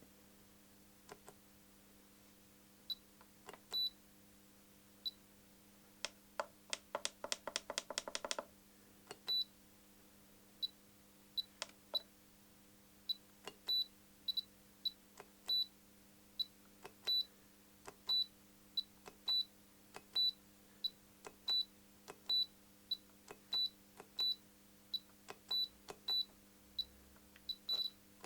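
Spektrum DX6i RC transmitter giving short high beeps, one at a time and irregularly spaced, as its scroll wheel and menu button are clicked through the menus, with a quick run of clicks about six seconds in. Each beep shows the newly replaced scroll button registering a press.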